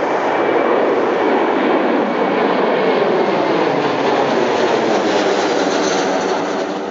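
Rolls-Royce RB211 jet engines of a Boeing 767 heard close by, a loud, steady jet noise with faint steady whining tones through it.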